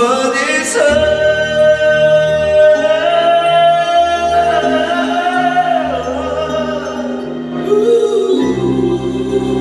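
A singer holds one long high note over a sustained backing-track accompaniment. The note slides down a little past the middle, and a lower sung phrase follows near the end.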